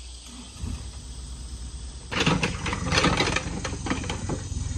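Earthmoving machine's engine running, growing much louder about two seconds in, with rattling and clanking as it works the dirt.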